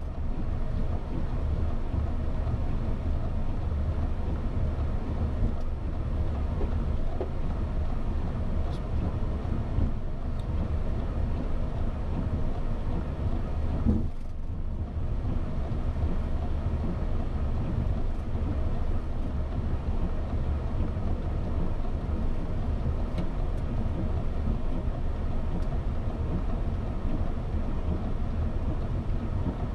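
Steady low rumble of a Boeing 737-800's flight deck in the climb: airflow and engine noise, with a brief dip about 14 seconds in.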